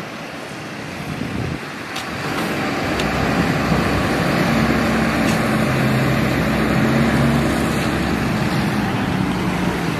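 Large truck engine running with a steady low hum over outdoor street noise, growing louder about two to three seconds in.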